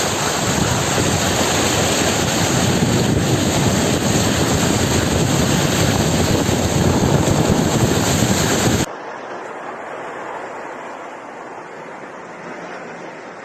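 Loud steady rushing of floodwater running across a street, with wind buffeting the phone microphone. About nine seconds in it cuts off abruptly to a much quieter steady hiss.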